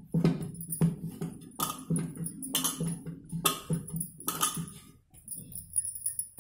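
Dough being kneaded by hand in a stainless steel plate: irregular pressing and slapping strokes, about one or two a second, with bangles jingling and the metal plate knocking on the table.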